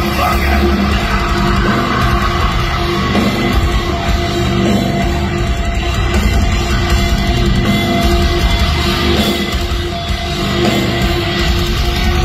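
Heavy metal band playing live at loud volume: distorted electric guitars, bass guitar and drum kit.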